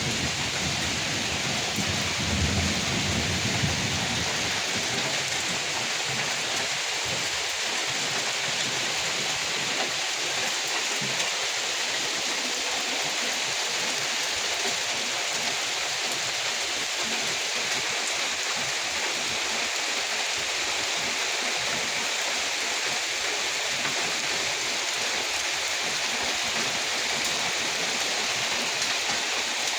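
Steady heavy rain falling, an even, dense hiss, with a low rumble of thunder a couple of seconds in.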